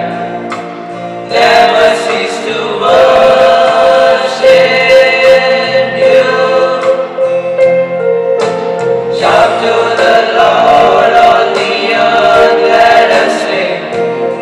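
A small group of teenage boys singing a Christian prayer song together into a microphone, phrase by phrase with short breaths between phrases.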